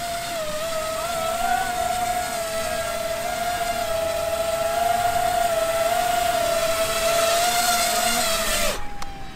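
Electric motors and propellers of a three-rotor VTOL tricopter drone whining steadily as it flies in low and lands, the pitch wavering slightly. The whine cuts off suddenly near the end as the motors stop once it is down on the grass.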